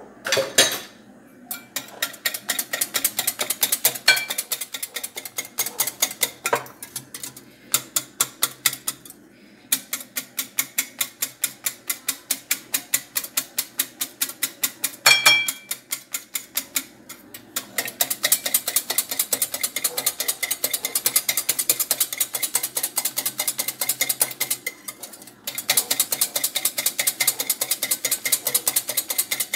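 Metal wire whisk beating eggs by hand in a glass bowl: rapid, rhythmic clicking of the wires against the glass, stopping briefly a few times.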